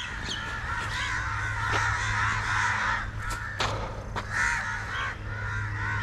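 Birds calling harshly and raspily, crow-like caws: a run of calls lasting about two seconds, then several shorter calls, with a couple of sharp clicks in between.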